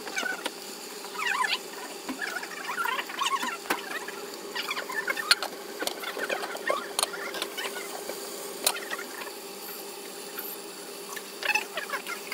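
Sardine fillets cooking in a lidded frying pan, played at four times speed: a run of high, chirpy squeaks and crackles with a few sharp clicks over a steady hum.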